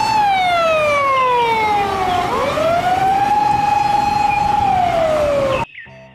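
Police car siren wailing: one long tone that slides slowly down, swoops back up a little past two seconds in, holds, then slides down again before cutting off suddenly near the end.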